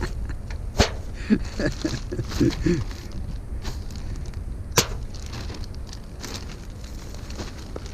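Metal pans and platters clattering as they are handled and set down, with two sharp clanks, about a second in and near the five-second mark, and a run of lighter knocks between them, over a steady low rumble.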